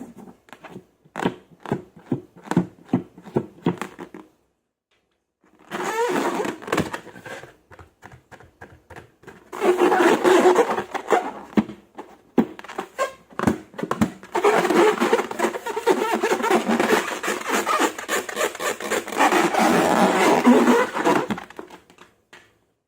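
Slime being worked by hand: a run of rapid wet clicks and pops, then a short gap, then longer stretches of dense crackling and squelching.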